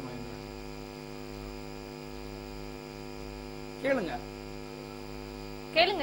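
Steady electrical mains hum, a ladder of evenly spaced steady tones, with a brief voice fragment about four seconds in and a voice starting again near the end.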